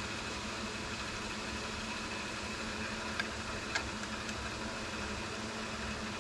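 Steady motor hum of shop machinery, with three light metallic clicks about three to four seconds in as a small wrench is set against the travel-dial bracket on a lathe carriage.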